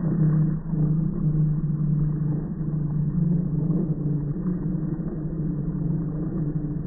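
Polaris Slingshot's four-cylinder engine held at high revs through a burnout, heard slowed down in slow-motion playback as a low, steady drone.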